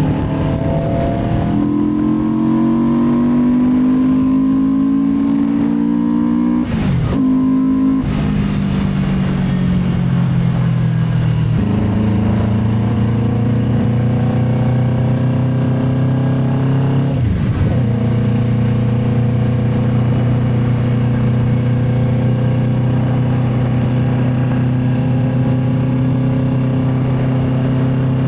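Benda Dark Flag 500 Commander's V4 engine running under way with twin exhausts. It revs up over the first few seconds, eases down, then holds a steady note, with brief breaks at gear changes about seven and seventeen seconds in.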